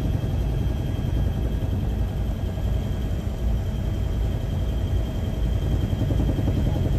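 Steady low rumble of an aircraft in flight, with a faint steady high whine over it.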